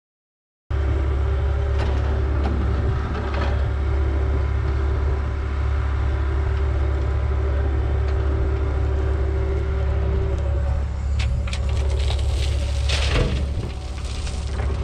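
Tandem-axle dump truck's diesel engine running steadily, with scattered clicks and knocks. A louder rush comes about 13 seconds in, after which the engine note drops.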